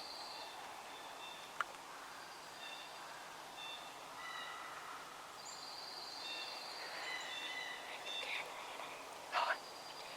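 Several songbirds singing in spring woodland, short high phrases overlapping throughout, over a steady outdoor hush. A brief sharp sound stands out about nine seconds in.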